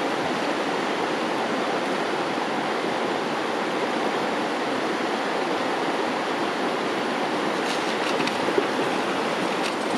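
River water rushing steadily over a shallow riffle.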